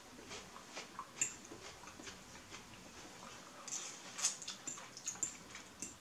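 Close-up eating sounds: faint crunchy chewing of a celery stick with small irregular clicks, then hissy slurps of stir-fried noodles from about four seconds in.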